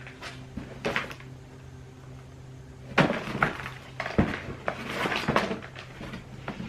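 Items being handled and rummaged through: a few knocks and clattering thuds with rustling, busiest from about three seconds in, over a steady low hum.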